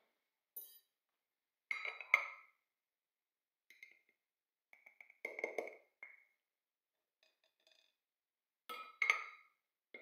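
Hard household items being handled, clinking and knocking in about six separate bursts with silence between; the loudest strikes, about two seconds in and near the end, ring briefly.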